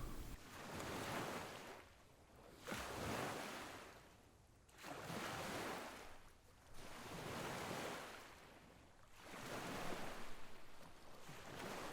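Small waves washing in: faint swells of rushing noise, five in all, about every two seconds.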